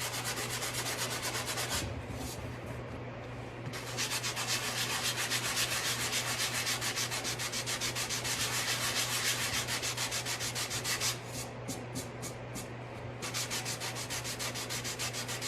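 Hand sanding with a sanding block on dried wood putty along a wooden drawer's edge. Quick, even back-and-forth scratchy strokes ease off briefly about two seconds in and again about eleven seconds in.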